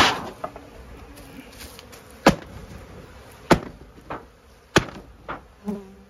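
Honeybees buzzing around an opened hive, with a series of sharp, irregular wooden knocks and clunks as the hive boxes and frames are handled.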